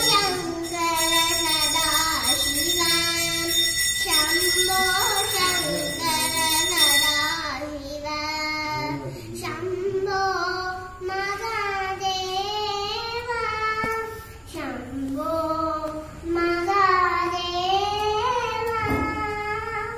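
A young girl singing solo into a microphone: a slow melody of long held notes that bend and glide, with short pauses for breath.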